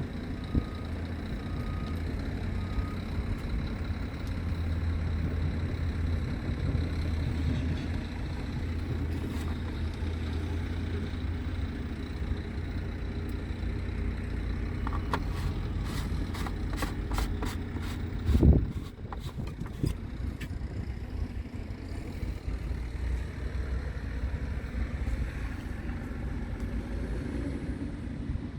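Scania R tractor unit's diesel engine idling steadily. A little past halfway comes a quick run of clicks, then a single thump.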